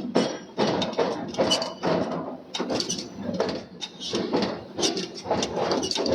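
Irregular metal clanking and knocking, a few sharp strikes a second, typical of work in a forging shop.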